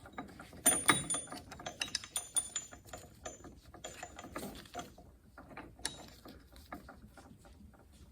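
Steel parts of an NV4500 transmission's 5th gear assembly being handled and fitted on the shaft: scattered metal clinks and taps, some ringing briefly, busiest in the first few seconds and sparser after.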